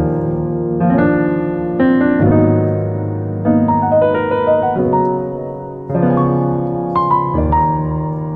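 Background piano music: slow chords, a new one struck about every second, each fading away before the next.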